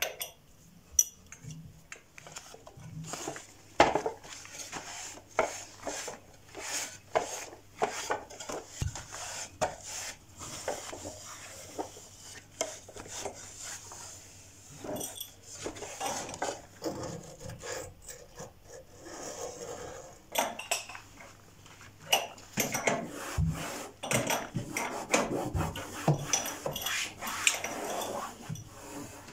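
Dishes and utensils being handled: irregular clinks, taps and knocks, coming faster and busier in the last several seconds.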